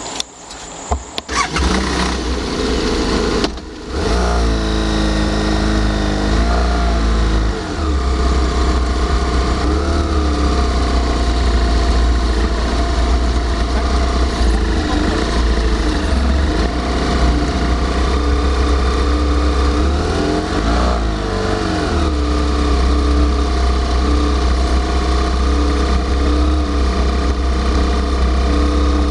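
Motorcycle engine started after a few clicks, then running, its pitch rising and falling several times as it is ridden at low speed.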